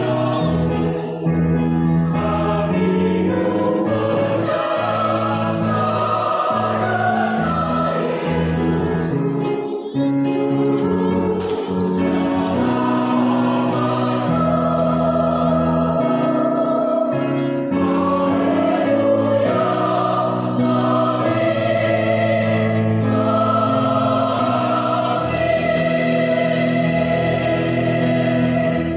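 Mixed adult choir, men's and women's voices together, singing in parts with long held chords.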